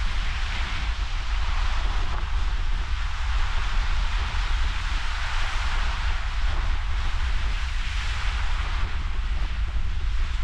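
Ocean surf breaking and washing ashore during a king tide, a hiss that swells and eases every few seconds, under a heavy rumble of wind on the microphone.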